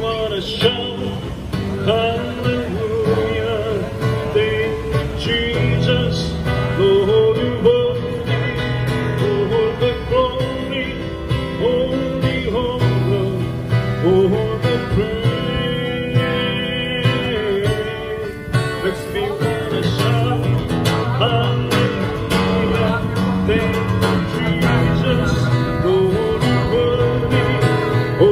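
Live worship song: a man singing while strumming an acoustic guitar, the melody gliding over steady strummed chords.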